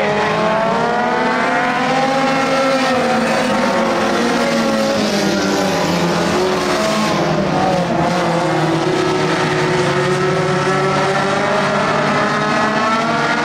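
A pack of dirt-track stock cars racing around the oval, several engines running at once. Their overlapping notes rise and fall as the cars go through the turns and down the straights.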